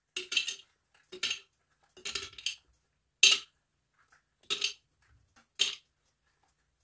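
Ice cubes dropped one at a time into a glass jar: about six separate clinks, roughly one a second.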